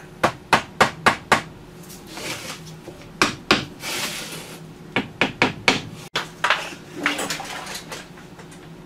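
Work at a window frame: runs of sharp clicks and knocks, about four a second, broken by several short hissing spurts, typical of a spray foam gun dispensing foam into the frame gap.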